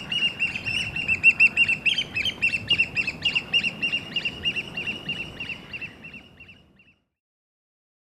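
American oystercatchers piping: a rapid run of short, sharp, high calls, several a second, fading out near the end.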